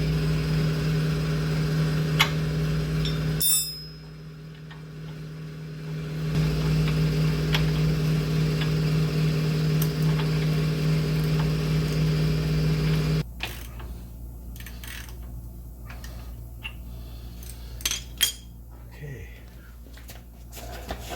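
A steady mechanical hum, like a small motor running, drops out about three seconds in, comes back, and cuts off suddenly about two-thirds of the way through. After it a few sharp metal clinks follow.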